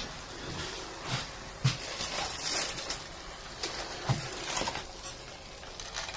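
Aluminium kitchen foil crinkling and rustling in irregular bursts as hands grip the foil-wrapped lid of a George Foreman grill and lift it open.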